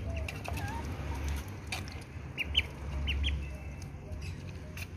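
Crested ducklings peeping in short high calls, with a few lower calls, while they feed from a clay bowl, their bills pecking and clicking against the feed and bowl. A steady low hum runs underneath.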